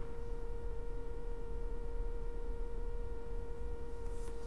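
A steady electronic tone held at one unchanging pitch, with faint overtones, over a low background hum.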